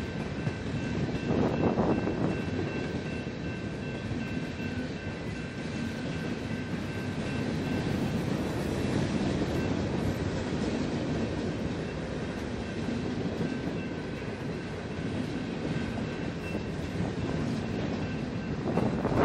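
Freight cars (coil steel cars, then centerbeam flatcars) rolling past on steel wheels and rail: a steady rumble with a faint, high, steady tone over it. A louder rush of noise comes in near the end.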